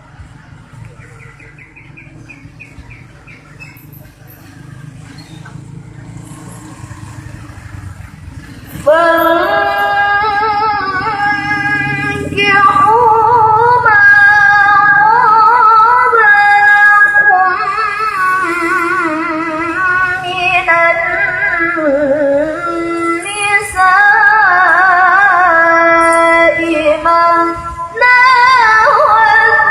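Low background noise, then about nine seconds in a girl's voice begins melodic Quran recitation (tilawah), with long held, ornamented notes broken by short pauses for breath.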